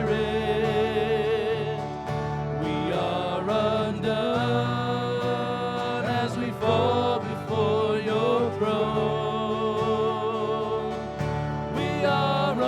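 Live worship band playing a slow worship song, with a singer holding long, wavering sung notes over steady keyboard-and-bass accompaniment.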